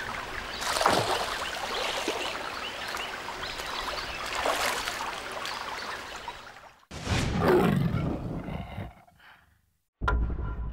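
Crocodile growling over rushing water and small chirping calls. After a sudden cut about seven seconds in comes a louder, deeper sound. Near the end there is a short closing sting with a ringing tone.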